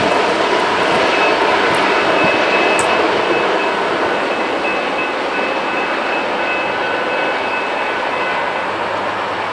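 Freight train rolling away, a steady rumble of wheels on rail that slowly fades, with a faint high ringing tone held over most of it.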